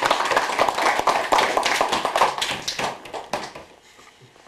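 A small group, mostly children, clapping in applause; the clapping thins out and stops about three seconds in.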